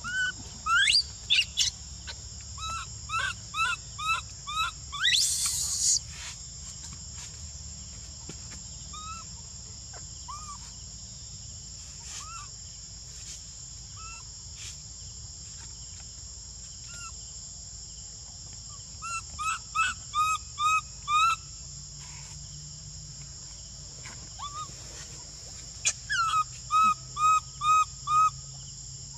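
A bird calling in three bouts of five or six quick, evenly spaced notes, near the start, about two-thirds through and near the end, with a few rising whistles between them. Under it runs a steady, high-pitched insect drone.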